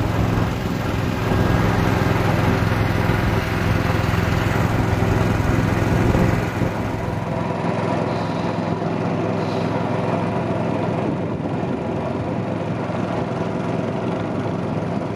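Long-tail boat engine running steadily, with a steady low drone, dropping a little in level about halfway through.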